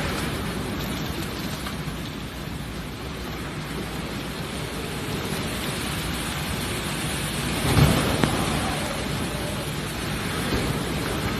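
Typhoon Maysak's wind and rain making a steady rushing noise, with a louder burst of low rumble about eight seconds in.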